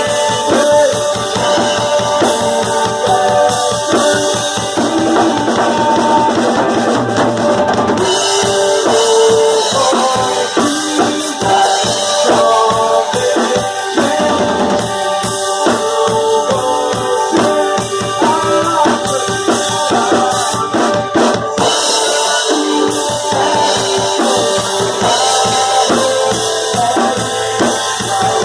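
A band playing live with a drum kit (bass drum and snare) driving the beat under a melody line. The low end drops away briefly about eight seconds in.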